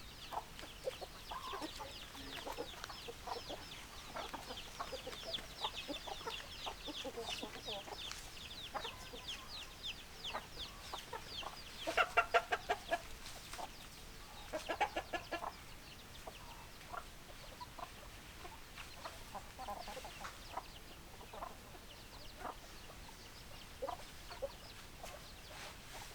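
Chickens clucking, with two loud runs of rapid repeated clucks, one about halfway through and another a few seconds later. Over the first half, a dense stretch of high, quick chirps sounds alongside the clucking.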